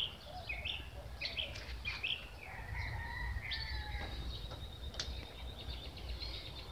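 Several birds chirping and calling in short rising and falling chirps, with a longer trill about halfway through, over a low steady rumble.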